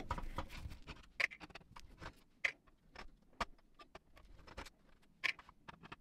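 Scattered light clicks and taps of a screwdriver working out the small screws that hold the cassette mechanism in a JVC RC-250LB radio cassette recorder, at irregular intervals with a few sharper clicks.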